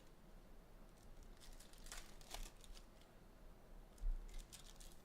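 Faint tearing and crinkling of trading-card pack wrappers being opened by hand, with a brief low thump about four seconds in.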